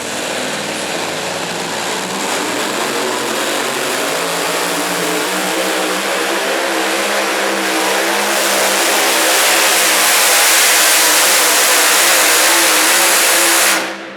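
Engine running hard at high power, loud and building steadily with a wavering note. The sound cuts off abruptly near the end.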